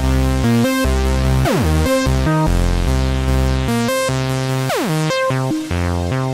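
Erica Synths Bassline DB-01 synthesizer playing a sequenced bass line through a Nightverb stereo reverb. The notes change several times a second, with two fast downward pitch swoops, about a second and a half in and again near the end.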